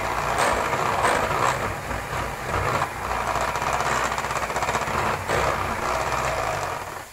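Electric hand mixer running steadily, its beaters whisking cake batter in a glass bowl. The mixer switches off near the end.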